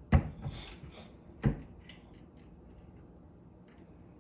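Two sharp knocks about a second and a half apart, followed by a few faint clicks, from hands working at a single-stage reloading press and its dies.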